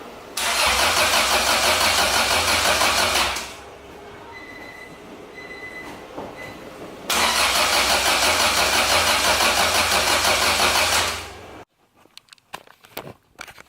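Acura Integra's starter cranking the engine in two attempts of about three and four seconds, with an even rhythmic pulse, and it never catches: the engine has no spark.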